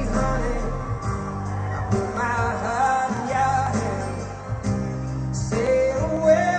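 A song playing: a singer's voice over a band accompaniment, with sung phrases about two seconds in and again near the end.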